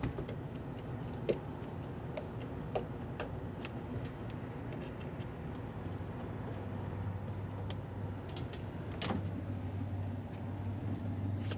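Steady low hum of HVAC equipment, growing stronger about halfway through, with scattered light clicks and taps of tools and hardware.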